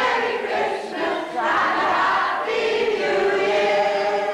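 A group of voices singing together, holding long notes that glide gently in pitch, fading out near the end.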